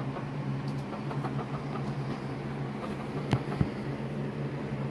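A steady low mechanical hum, like a motor or engine running, with two short clicks about three and a half seconds in.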